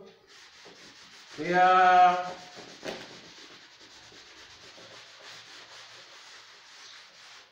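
Steady, faint scratchy rubbing on a chalkboard, with a single drawn-out spoken "we" about a second in.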